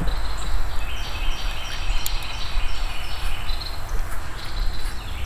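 Insects chirping in a high, pulsing series of about three chirps a second, over a steady low rumble.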